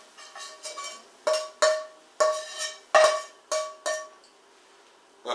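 Copper Chef 10-inch frying pan knocked again and again as the melted cheese is scraped and tapped out of it: about ten sharp metallic clinks over four seconds, each leaving the pan ringing briefly on the same tones, then they stop.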